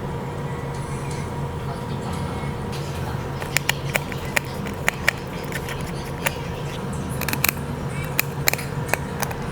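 Sharp, irregular clicks and taps of small repair tools on a phone, starting about three and a half seconds in, over a steady low hum.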